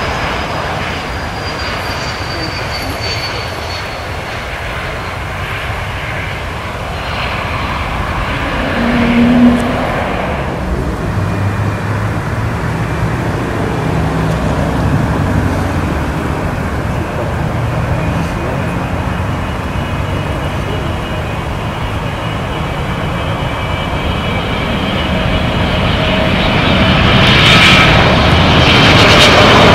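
Jet airliner engine noise. A high tone falls in pitch over the first few seconds, and a short low hum about nine seconds in is the loudest moment. The noise grows louder near the end with a high, steady whine.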